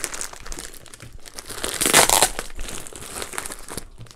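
Plastic poly mailer bag crinkling and rustling as it is handled and pulled open, with a louder stretch of tearing plastic about two seconds in.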